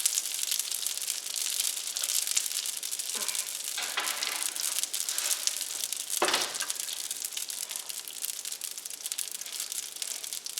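Toutons, pieces of pizza dough, frying in oil and butter in a pan, sizzling and crackling steadily. A few brief knocks come through the sizzle, the loudest about six seconds in.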